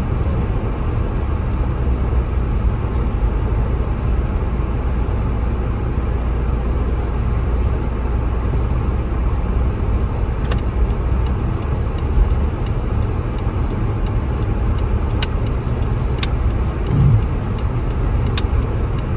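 Car interior road noise while driving: a steady low rumble of engine and tyres. About halfway through, a quick regular ticking starts at about two to three ticks a second, and there is a brief low thump near the end.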